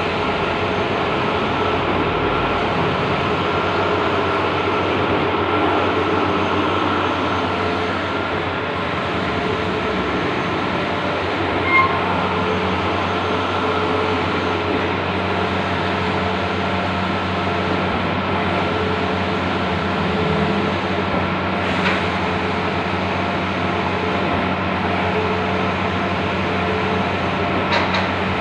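Large-format outdoor banner printer running: a steady mechanical whir with a constant hum, and a short high tone about halfway through.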